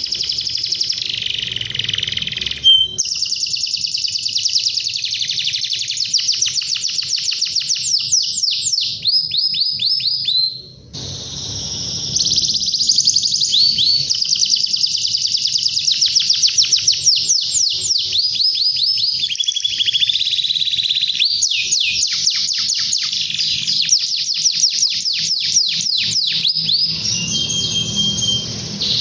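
A domestic canary sings a long, unbroken song of rapid trills and rolled runs of fast repeated notes, pausing briefly about eleven seconds in. It is full, loud song of the kind used to call out and set off rival canaries.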